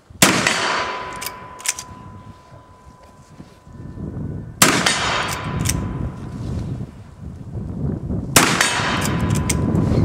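Uberti replica 1860 Henry lever-action rifle in .44-40 firing black-powder loads: three shots about four seconds apart. Each shot is followed by a couple of short metallic clacks as the lever is worked to chamber the next round.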